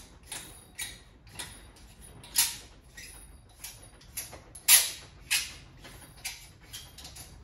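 Air-bag conversion unit being wound by hand down the greased thread of a coilover strut held in a vise: a short rubbing squeak with each turn, about every half second, a few of them louder, as it is screwed up tight.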